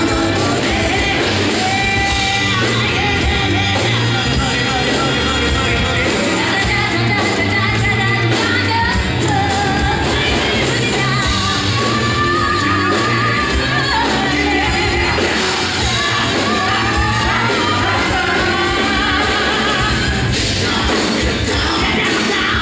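Loud rock-style music from a live show band, with a singer's wavering melody over drums and guitar.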